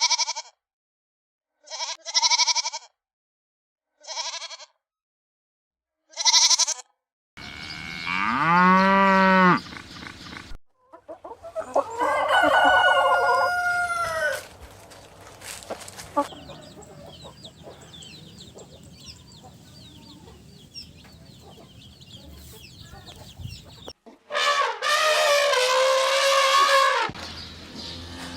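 A run of recorded farm animal calls with short gaps between them: a few short bleat-like cries, a long arching rooster crow about eight seconds in, then chicken clucking, and another long call near the end.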